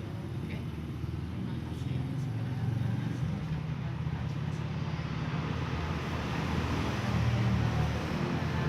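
Steady low background rumble, with faint voices at times.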